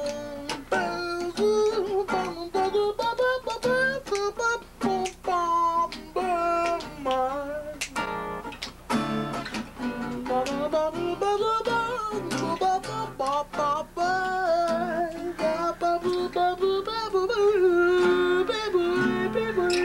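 A song with plucked and strummed guitar and a singing voice.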